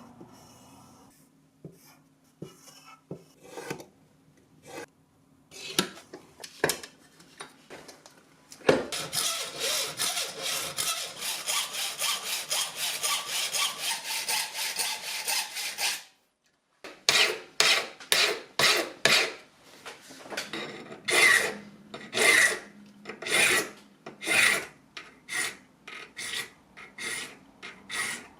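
Hand metalwork on a 2 mm brass plate: a few scattered scrapes and taps, then several seconds of quick, steady sawing strokes cutting out the buckle shape. After a short cut-off, slower separate strokes of a file or rasp on the brass, about two a second.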